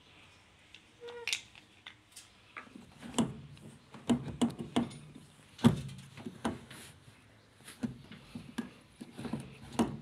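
Hand handling loose plastic and metal parts around a heat pump dryer's drive motor: irregular clicks, knocks and light rattles, with the sharpest knock a little over halfway through.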